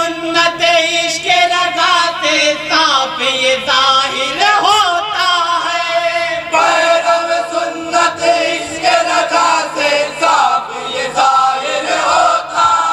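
A group of men singing an Urdu naat together in chorus into a microphone, with long wavering held notes and no pause.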